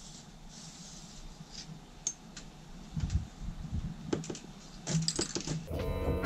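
Scattered light clicks and taps of hands working on fittings at the side of a truck camper from a ladder. Background music comes in near the end.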